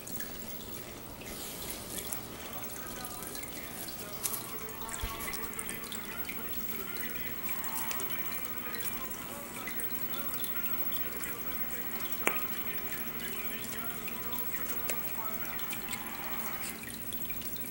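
Aquarium water bubbling and trickling steadily, the sound of the tank's aeration and water circulation, with a couple of faint clicks.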